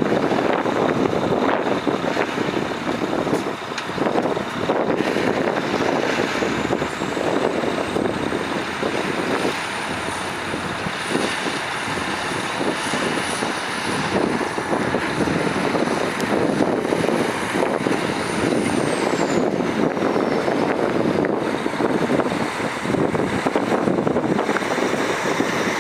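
Heavy diesel earthmoving machinery running steadily under load at close range. A thin high whine climbs in pitch several seconds in, holds, and drops away about three-quarters of the way through.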